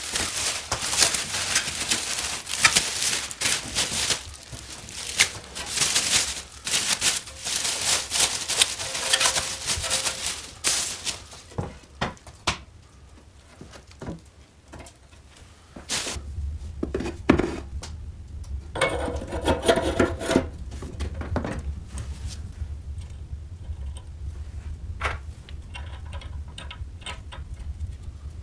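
Clear plastic wrap being torn and pulled off a motorcycle frame, a dense crackling for about the first eleven seconds. After that come quieter handling knocks, with a low hum starting about sixteen seconds in and a brief ringing sound about twenty seconds in.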